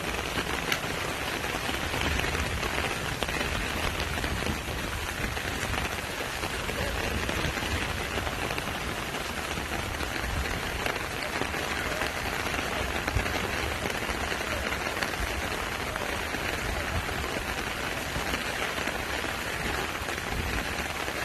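Heavy rain falling steadily, a dense even hiss of drops with scattered small patters, over a low rumble.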